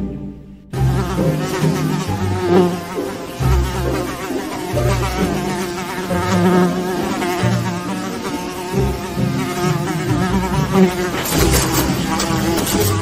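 A fly buzzing around, its pitch wavering up and down, with low thumps now and then.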